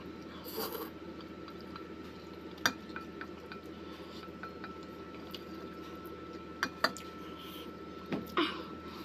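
Eating noises: noodles slurped about half a second in, then wooden chopsticks clicking against a stainless steel pot, once near three seconds and twice in quick succession near seven seconds.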